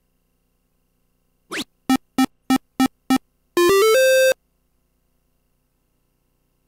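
Electronic dart machine sound effects: a quick rising chirp as a dart scores, then five short beeps in a row and a brief rising jingle that ends on a held note.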